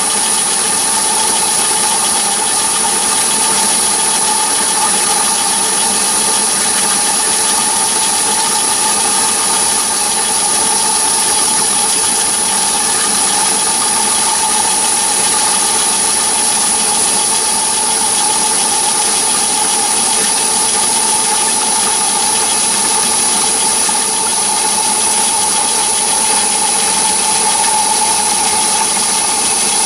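Myford ML7 lathe running steadily while a boring bar feeds into the bore of a workpiece held in a four-jaw chuck: an even machine drone with a steady high whine over it.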